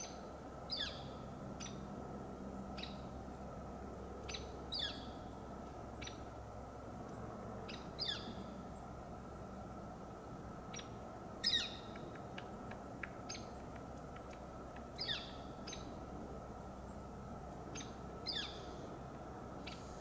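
Woodpecker calling: short, sharp, falling call notes repeated irregularly every one to three seconds, with one louder note about halfway through.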